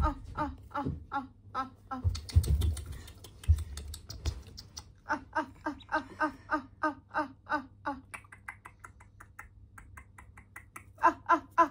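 Ducklings peeping in a rapid run of short calls, about four a second. A couple of seconds in, the calls break off for a spell of low thumps and rustling, then resume, loudest near the end.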